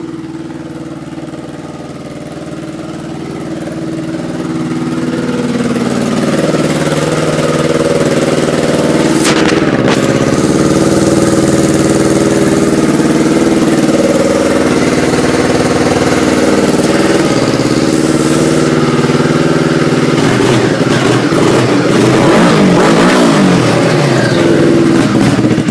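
Exell aftermarket exhaust on a 2010 Yamaha Phazer RTX snowmobile's 500 cc four-stroke twin, running steadily and growing louder over the first few seconds. In the last few seconds the note wavers and the engine runs unevenly.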